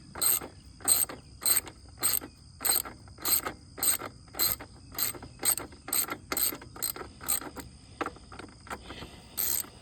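Ratchet wrench clicking back and forth in short strokes about twice a second, working a tight bolt on a lawnmower's carburetor, with a short pause near the end. Insects drone steadily behind.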